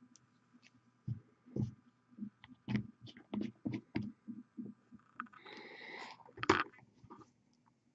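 Handling noises at a miniature-painting desk: an irregular run of short knocks and taps, then a short hiss and one sharp click near the end, the loudest sound.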